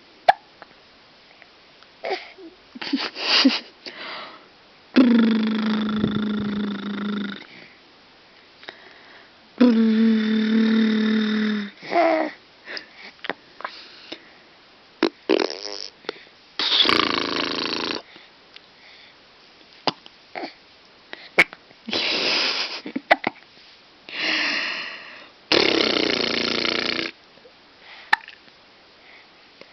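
A baby with the hiccups: short, sudden hiccups scattered throughout, between several longer vocal sounds lasting one to two and a half seconds each.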